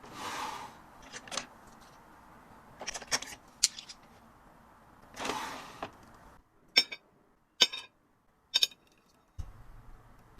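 Packing perfume samples: packaging rustles in two swishes about a second long, with light clicks of small items being handled. Three sharp, ringing clicks follow near the end.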